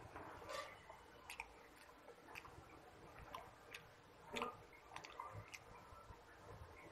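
Fingers mixing rice and Malabar spinach on a metal plate: faint scattered clicks and soft squishes, roughly one a second, the loudest about four and a half seconds in.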